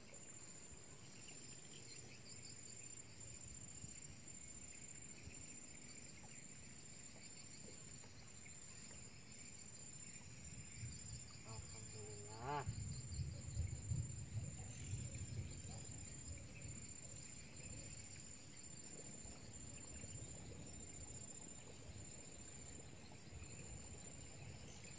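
Faint steady chirring of insects in the riverside vegetation. About halfway through, a short pitched sound that bends up and down is followed by a few seconds of low knocks and rumble.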